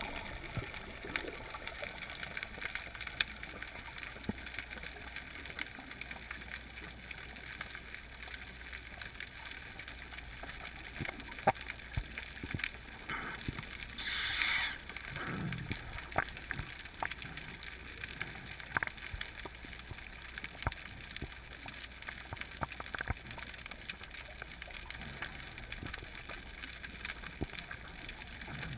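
Underwater ambience heard through a GoPro's waterproof housing: a steady faint hiss dotted with scattered sharp clicks and crackles, and about halfway through a brief gush of bubbling water that falls in pitch.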